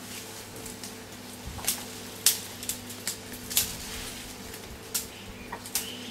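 A handful of sharp, irregular cracks and clicks, about seven in four seconds, over a steady low hum.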